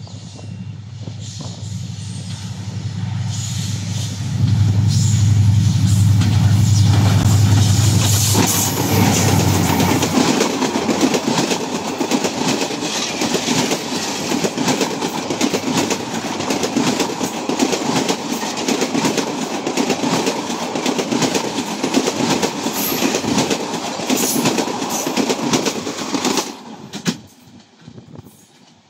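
Bangladesh Railway express train passing close by. First its diesel locomotive approaches with a low engine hum that grows loud as it goes by, then the coaches roll past with rapid, continuous wheel clatter on the rails. The sound drops away abruptly near the end.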